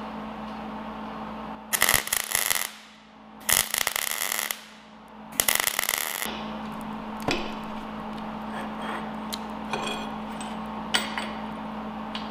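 Wire-feed (MIG) welder laying three short plug welds through holes in steel channel: three crackling bursts of about a second each, close together, over a steady low hum. A couple of light metal knocks follow later.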